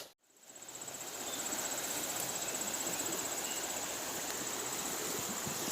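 Insects trilling steadily: a thin, high, rapidly pulsing tone over a wash of outdoor background noise, fading in after a moment of silence at the start.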